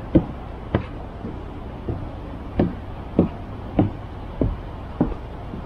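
Footsteps at a steady walking pace, just under two steps a second, each a dull knock, over a low steady rumble.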